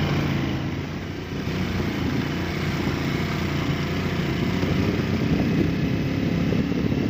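Motorcycle engine running steadily while the bike rides along, heard from on the bike with wind rushing over the microphone.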